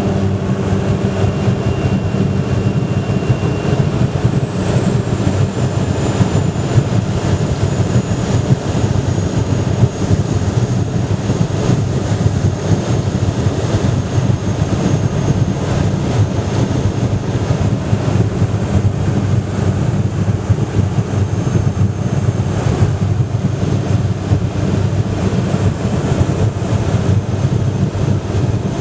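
Ski plane's propeller engine running steadily, a loud even drone with a faint high whine that slowly falls in pitch over the first several seconds.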